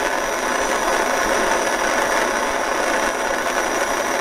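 Jeweller's torch flame blowing with a steady hiss as it heats a silver strip for soldering.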